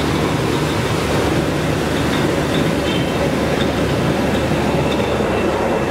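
Belt-driven gauze bandage bleaching machine running: an electric motor turns the works through V-belts and pulleys, a steady loud mechanical rumble with a faint high whine over it.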